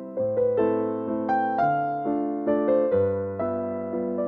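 Background music: a slow keyboard tune in an electric-piano sound. Each note is struck and then fades, over a low bass note that changes about every second and a half.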